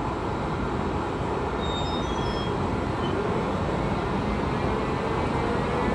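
Siemens Vectron locomotive pulling a passenger train out of a station: a steady rumble of the train moving. Near two seconds in there are a few faint high chirps, and in the second half a faint tone rises slowly as it gathers speed.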